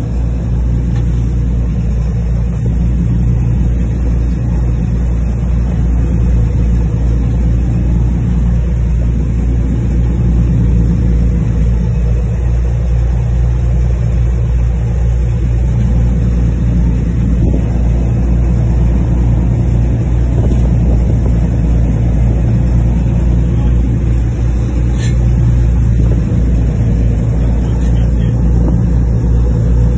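The filming boat's engine running steadily at a constant low pitch while the boat moves through choppy sea, with a steady hiss of wind and water over it.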